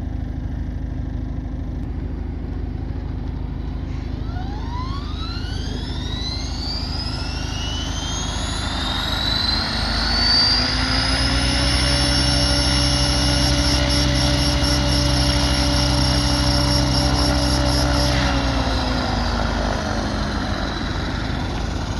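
Align T-Rex 600 ESP electric RC helicopter spooling up: its motor and rotor whine climbs steadily in pitch over several seconds. It holds at a steady head speed with a low drone, then winds back down near the end.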